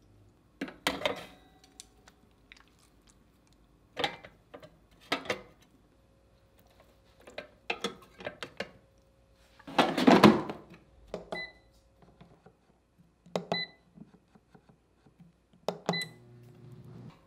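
Wooden chopsticks clacking and knocking as squid pieces are laid on a wire rack in an air fryer basket, with a louder clatter about ten seconds in. Then the air fryer's dial control beeps three times as the cooking time is set, and a low hum starts near the end.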